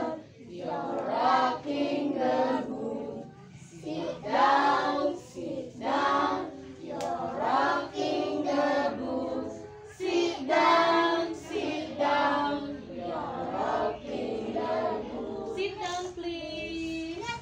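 A group of young children singing a song together in chorus.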